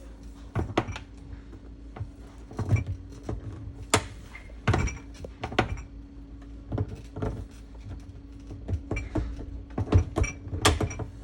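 Irregular knocks and clunks of a GE Cafe dishwasher's control panel being worked out of and back into its door bracket, which it slides through at two different angles. A steady low hum underneath.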